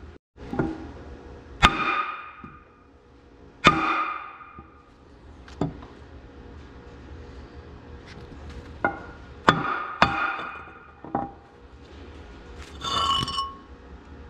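Hammer blows driving a cylinder sleeve out of an Oliver 1600 tractor engine block: about seven irregular strikes, several ringing with a metallic tone, and a brief ringing sound near the end.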